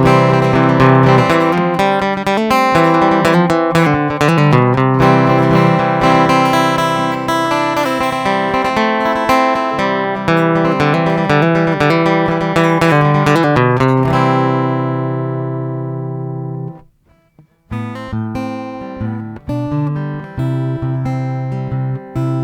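Boulder Creek Gold Series ECGC-1P grand concert acoustic-electric guitar played through its AB4-TR pickup and preamp, a steady run of picked notes and chords. About fourteen seconds in a chord is left to ring out, and after a brief silence the playing starts again.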